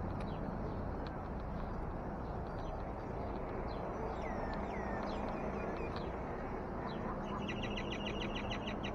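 Small birds chirping in scattered short calls, with a few falling whistled notes midway and a fast trill of about ten quick notes near the end, over a steady low background hum.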